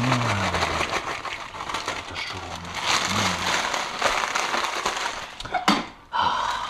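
Doritos tortilla chips and their foil bag crackling and crinkling as the chips are poured out and crushed by hand into a pot, with a sharp knock about five and a half seconds in.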